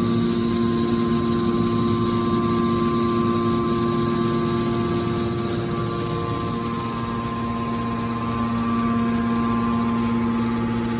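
Hydraulic baler's power unit running with a steady hum. Its tone fades briefly about six seconds in, then comes back.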